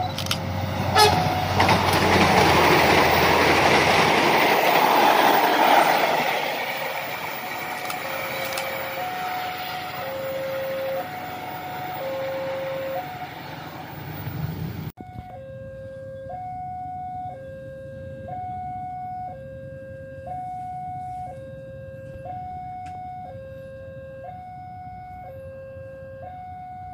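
Railway level-crossing warning alarm sounding a two-tone electronic signal, alternating steadily between a higher and a lower note. Over the first six seconds a diesel multiple unit passes loudly, its engine and wheel noise fading away. About halfway through, the sound cuts to the alarm alone.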